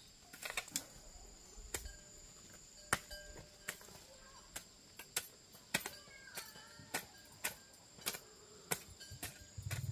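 Sharp knocks or clicks, irregular at one or two a second, over a steady high-pitched insect chirring.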